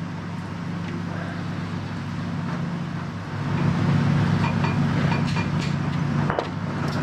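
A steady, low mechanical hum of a machine or motor running in the background. It grows louder about three seconds in and drops back just before the end, with a few faint ticks over it.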